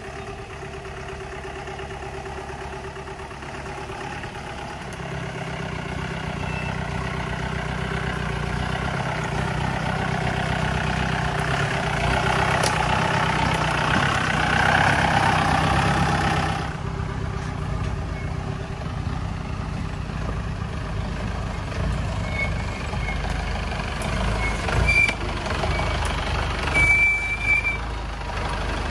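Mahindra 4x4 jeep's diesel engine working under load on a steep, rocky off-road track, getting steadily louder for about sixteen seconds, then dropping off suddenly to a lower steady run. A few short high chirps and knocks sound near the end.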